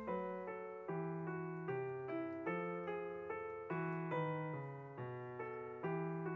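Background solo piano music, notes struck at an even pace of a little over two a second, each one fading.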